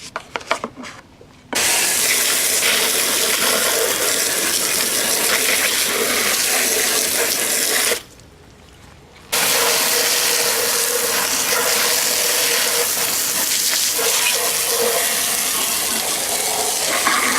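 Garden hose spraying water onto the Craftsman lawnmower's deck, washing off built-up grass clippings. A few knocks come before the spray starts; the spray cuts off for a moment partway through, then runs again.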